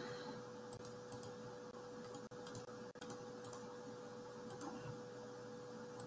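Faint, irregular clicking from working a computer, the taps of mouse and keys, over a faint steady hum.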